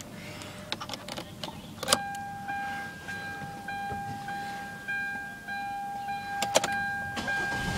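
Car's electronic warning chime sounding a repeated tone, a new chime just under twice a second, starting about two seconds in. Light clicks come before it, and a sharp click comes near the end.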